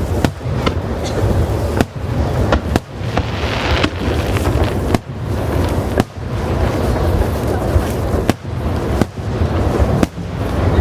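Aerial fireworks bursting in quick, irregular succession: sharp booms about once a second over a continuous low rumble, with a hissing crackle about three seconds in.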